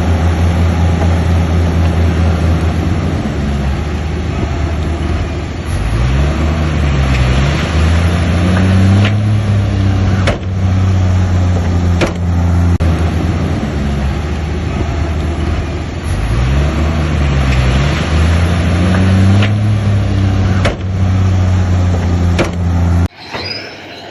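Bulldozer's diesel engine running hard, its pitch dropping and climbing back up twice as the load changes, with a few sharp clanks. The sound cuts off suddenly about a second before the end.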